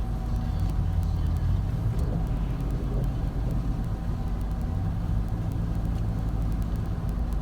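Steady low rumble of a car's engine and tyres, heard from inside the cabin while driving on the highway.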